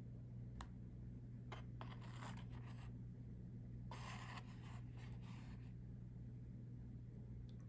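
Light clicks and two short scraping rustles as disposable wooden chopsticks and a foam oden cup are handled and a piece of simmered daikon is lifted from the broth, over a steady low hum.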